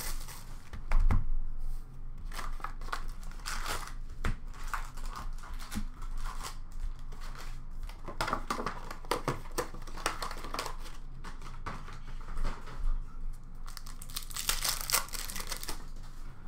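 Hockey card pack wrappers crinkling and tearing as packs are ripped open by hand, with cards and packs shuffled between rips. A single loud thump comes about a second in.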